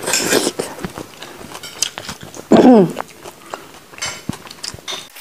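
Close-up eating sounds from fish stew and lettuce eaten by hand: wet mouth smacks, chewing and small clicks. A little past halfway a loud, short whine cuts in, falling steeply in pitch.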